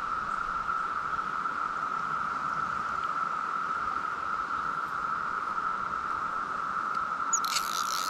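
Chorus of Brood X periodical cicadas: a steady, unbroken high drone on one pitch. A sudden hissing noise comes in near the end.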